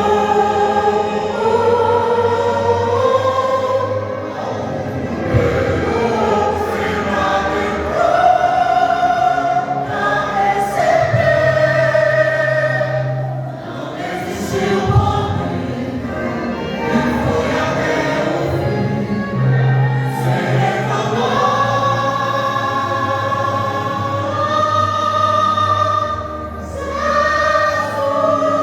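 Vocal group singing a Christian worship song in several-part harmony, with instrumental backing and held low bass notes.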